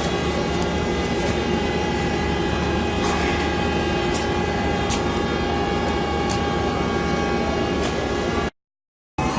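Diesel-electric locomotive engine running steadily at idle: a constant low hum with several steady whining tones over it. The sound cuts out suddenly near the end.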